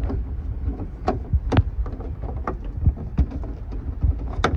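Irregular clicks and knocks from a replacement light housing being handled and pressed into its place in the car's trim, over a steady low rumble. Two sharper clicks come near the end.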